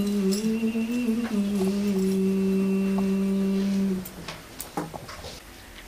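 Melodic Qur'an recitation by a young man's voice, drawing out the word "ar-Rahman" of the basmala as one long held note that breaks off about four seconds in, followed by a pause.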